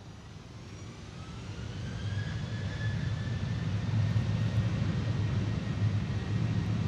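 Boeing 737-800's CFM56 jet engines with a whine rising in pitch over the first few seconds and then holding, over a low rumble that grows steadily louder as the engines spool up.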